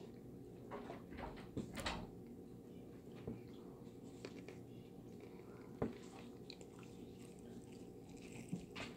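Quiet eating of crispy fried chicken: soft chewing with a few scattered small crunches and clicks, a sharper one about six seconds in and a bite into a drumstick near the end, over a faint steady room hum.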